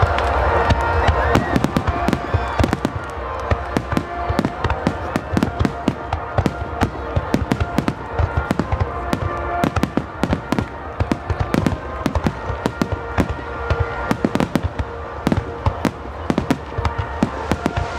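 Aerial fireworks shells bursting in a dense barrage, several sharp bangs a second, without a break.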